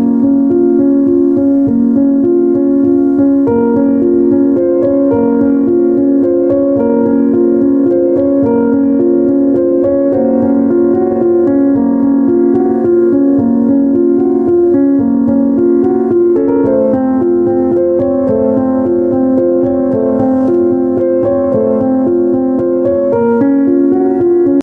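Background music: soft piano or electric piano playing a steady run of sustained notes.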